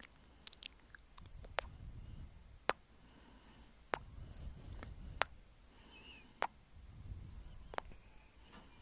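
Close-up mouth sounds into a clip-on microphone: tongue and lips licking a swirl lollipop, with sharp wet clicks about once a second over a low rumble.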